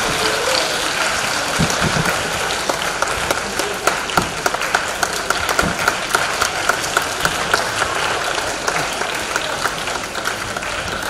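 Audience applause: a crowd clapping steadily.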